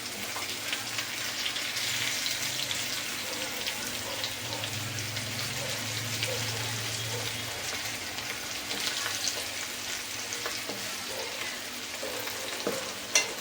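Stuffed bitter gourds frying in oil in a pan, a steady sizzle and crackle with small scraping ticks as they are gently stirred. A single sharp clack near the end.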